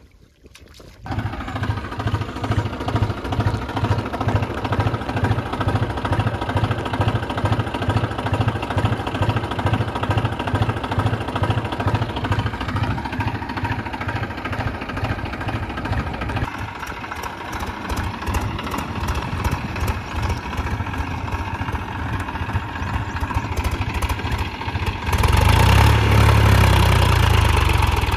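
Diesel tractor engine running steadily with a low, even pulse. It comes in about a second in and gets louder near the end.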